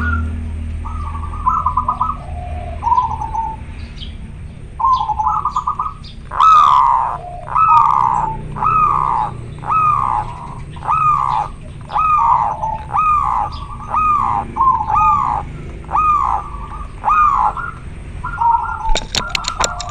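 Zebra dove (perkutut) calling in breeding condition: rolling trilled coos, then a long run of short falling notes about one every 0.7 s, then trills again. A few sharp clicks come near the end.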